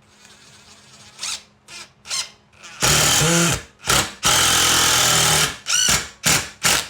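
Power drill run in a series of trigger pulls: three short spurts, then two long runs with the motor speeding up and slowing down, and three quick spurts near the end.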